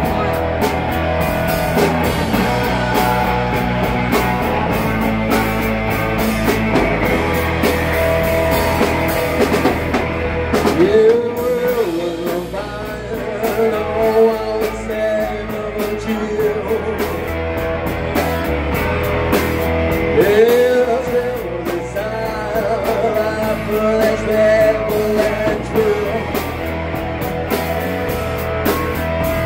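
Live rock band playing with electric guitars, bass guitar and drum kit. A singer's voice comes in about ten seconds in and carries on over the band.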